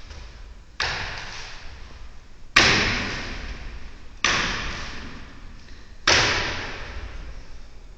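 An acrobat's feet landing on a Russian bar, the flexible pole held by two bases: four sharp thuds roughly a second and three-quarters apart, each ringing out in a large hall. The second landing is the loudest.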